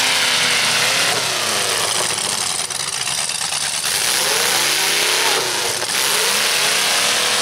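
Demolition-derby pickup trucks' engines revving up and down several times through open exhaust stacks, over a steady rushing noise.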